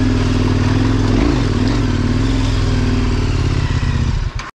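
KTM 1090 Adventure's V-twin engine running at steady revs under way, with wind and riding noise over it. The revs dip and pick up briefly about a second in, and the sound cuts off suddenly near the end.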